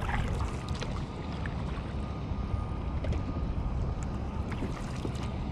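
Wind rumbling on the microphone while a kayak is paddled, with scattered small clicks and splashes from the double-bladed paddle's strokes.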